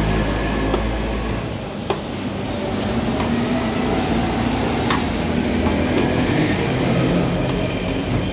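Steady rumbling street noise with vehicle engines, a low engine hum dropping away about a second and a half in. A metal ladle clinks a couple of times against the large steel cooking pot.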